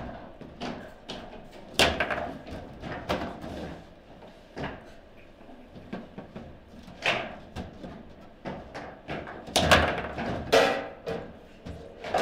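Table football play: the ball and the plastic player figures clack and the rods knock in an irregular run of sharp hits, loudest about two seconds in, at seven seconds and in a cluster around ten seconds.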